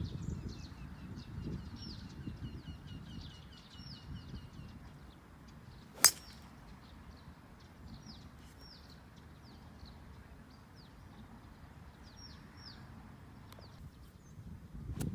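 A single sharp crack of a golf club striking the ball, about six seconds in. Birds chirp and trill throughout.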